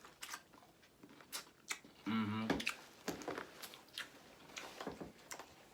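Mouth sounds of biting and chewing corn on the cob: a run of short, crisp clicks and smacking crackles, with a brief voiced sound about two seconds in.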